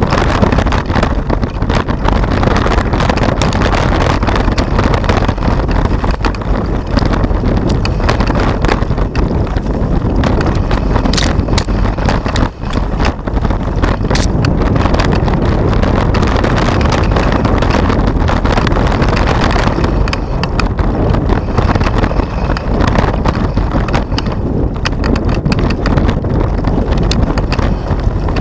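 Mountain bike riding fast over a rough dirt trail: loud wind rush on the microphone mixed with constant rattling and knocking from the bike over the bumps.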